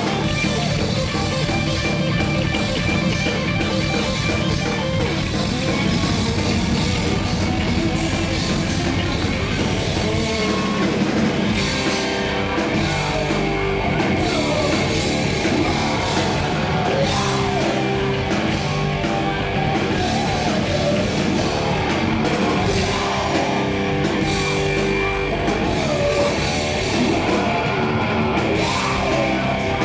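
Live rock band playing loudly: electric guitar and drum kit, with a singer.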